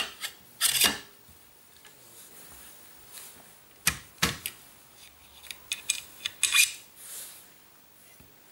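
Sako TRG M10 rifle handguard being slid over the barrel and seated onto the receiver: a brief scrape near the start, two sharp knocks about four seconds in, then a run of light clicks of hard parts against each other.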